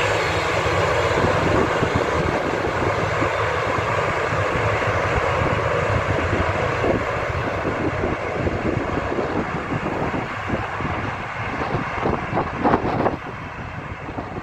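Airbus A340-200's four CFM56 turbofan engines running at taxi power, a steady jet roar that grows fainter as the aircraft taxis away. A few knocks of wind on the microphone come near the end.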